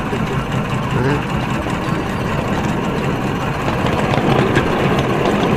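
Ride-on miniature toy train running along its narrow-gauge track, giving a steady mechanical running noise.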